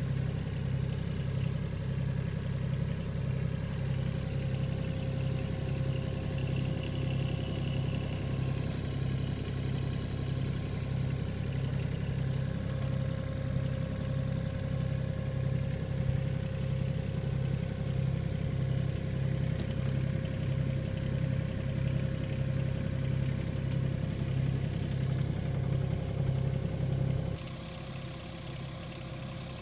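Cat 301.4C mini excavator's diesel engine idling steadily with a regular low beat, heard close from the operator's seat. Near the end it becomes quieter, heard from outside the machine.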